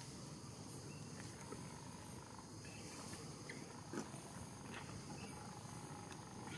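Faint outdoor background with a steady high insect buzz, and a few small clicks, the sharpest about four seconds in.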